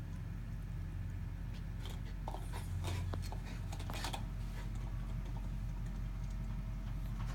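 A dog playing with a plastic GoBone toy on carpet: scattered sharp clicks and knocks, mostly about two to four seconds in, over a steady low hum.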